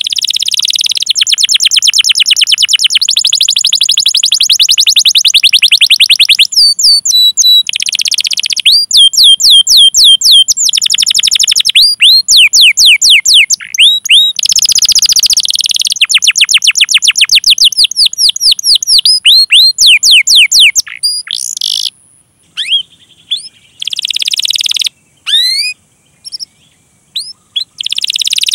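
Domestic canary singing: long, fast rolling trills of rapidly repeated high notes, broken by runs of sweeping 'cuit cuit' call notes. In the last several seconds it thins to scattered single chirps with short pauses.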